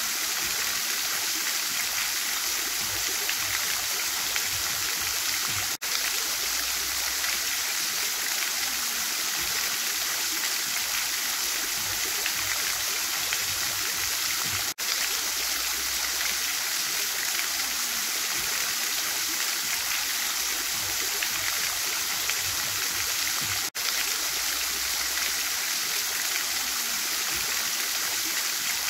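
Fountain water splashing and falling in a steady, dense hiss. The sound drops out for an instant three times, about nine seconds apart.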